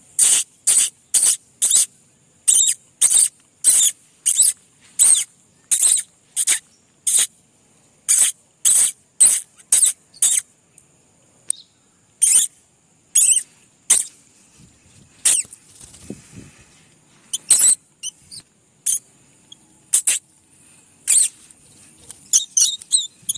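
Young lovebirds calling with shrill, high-pitched chirps, about two a second at first, then more sparsely, with a quick run of calls near the end.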